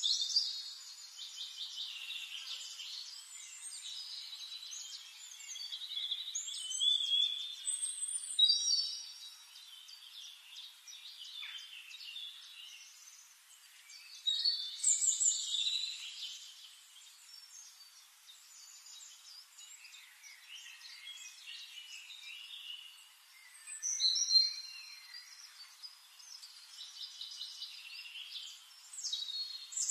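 Birds chirping and trilling, high-pitched, in louder bursts every several seconds with quieter chirping between.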